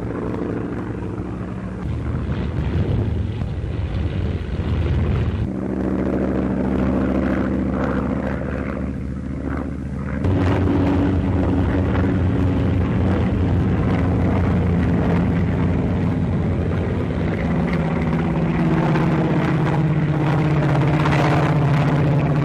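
Piston aircraft engine running steadily with a propeller drone, the pitch shifting abruptly a few times in the first ten seconds, then holding steady.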